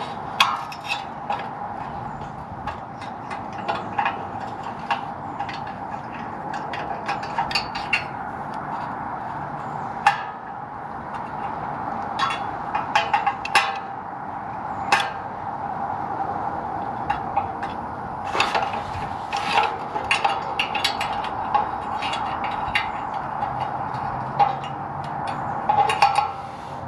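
Irregular small metal clicks, taps and scrapes of an exhaust valve clip and spring being worked by hand onto the valve linkage under a BMW F30 340i, over a steady background hum.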